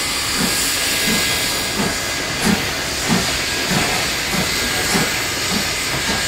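Steam locomotive 3526, a NSW C35 class 4-6-0, passing slowly with a steady hiss of steam. Under the hiss runs a low, regular beat about one and a half times a second.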